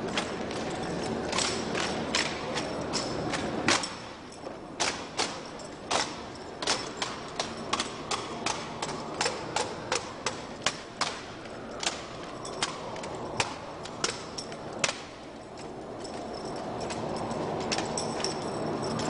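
Drill team's rifles being slapped and struck in unison during an armed drill routine: a long run of sharp smacks and cracks, about two a second through the middle, over steady background noise.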